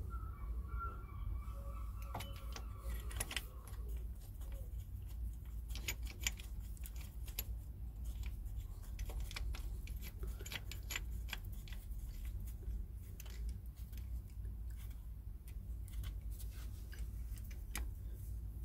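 Scattered metallic clicks and clinks as a brake caliper piston rewind tool's adaptor plate and threaded spindle are handled and fitted against the caliper piston, with a steady low rumble underneath.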